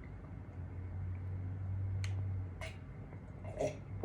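Close-up mouth sounds of eating: a few sharp, wet clicks of chewing and lip-smacking, spaced about half a second to a second apart, with a low hum in the first half.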